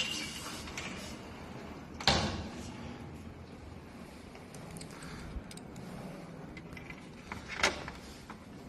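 A treadmill being handled and tipped back down: scraping and rattling with a sharp knock about two seconds in and another near the end.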